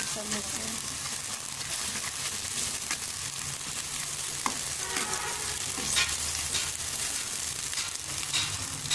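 Sliced onions sizzling in hot ghee as they are lightly browned, with a metal spoon stirring them and now and then scraping and knocking against the aluminium pot.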